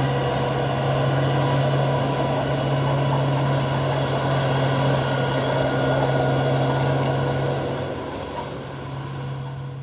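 Dump truck's diesel engine running with a steady, even drone, fading away over the last two seconds.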